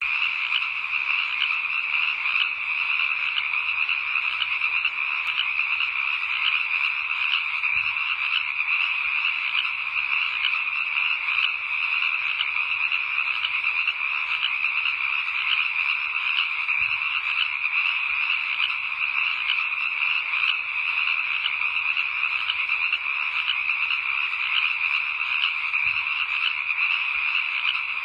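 A steady night chorus of many frogs croaking, a dense unbroken wall of rapid calls.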